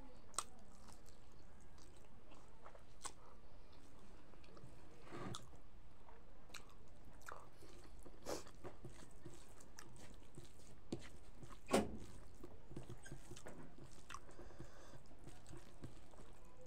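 Chewing and mouth sounds of a person eating rice and fried pork by hand, with scattered short clicks, the sharpest about twelve seconds in.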